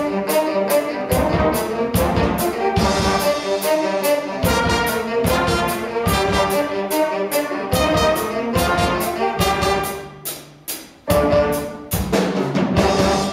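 School jazz band playing live: trumpets, trombones and saxophones over a drum kit with a steady cymbal beat. The band drops out briefly about ten seconds in, then closes the piece with a few loud final hits.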